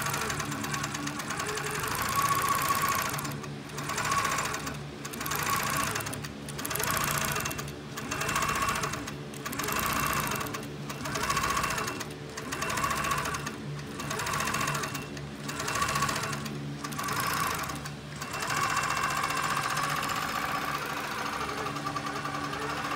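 Handi Quilter longarm quilting machine under Pro-Stitcher computer guidance, stitching with a steady motor hum and needle chatter. For most of the stretch the sound swells and dips about every second and a half, then evens out near the end.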